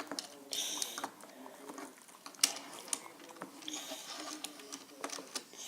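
Scissors cutting through a foam squishy toy: two short scraping snips through the foam and a few sharp clicks of the blades.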